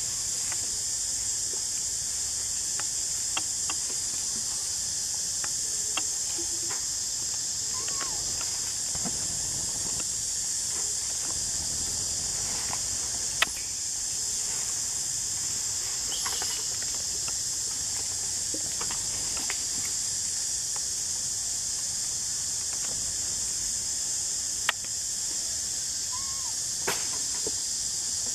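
Steady high-pitched insect chorus droning without a break, with a few sharp clicks and a couple of faint brief chirps.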